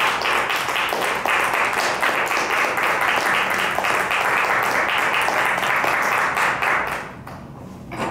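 A small audience clapping steadily, then dying away about seven seconds in.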